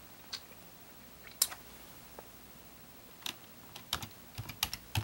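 Computer keyboard being typed on, entering a log-in name: a few separate key clicks, then a quicker run of keystrokes from about three seconds in.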